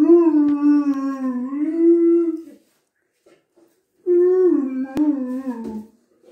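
Irish setter giving two long, wavering howl-like calls that sound almost like talking. The second call starts about four seconds in and falls in pitch at its end.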